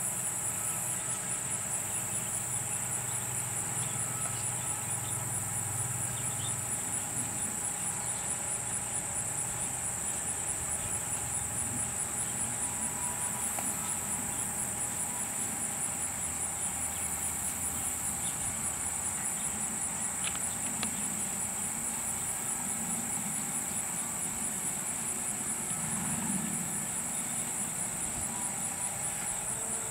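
Steady insect chorus, a continuous high buzz with a fast, even pulse. A low hum sits beneath it for the first several seconds.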